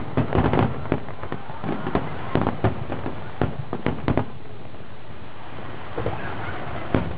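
Aerial fireworks shells bursting in a rapid series of bangs that thins out about four seconds in to a few scattered bangs.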